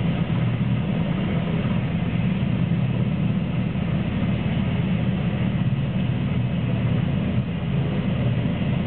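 Twin-turbine NH90 helicopter hovering low over a ship's flight deck: steady rotor and turbine noise, deep and unbroken, strongest in the low range.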